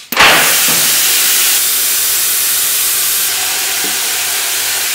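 Four-post vehicle lift being lowered: its release valve is opened, giving a loud, steady hiss that starts sharply just after the lever is worked and keeps going.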